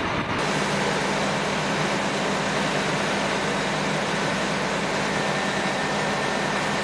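A motor running steadily at constant speed, a loud even drone with a low hum underneath, starting abruptly about half a second in; a faint high whine joins about five seconds in.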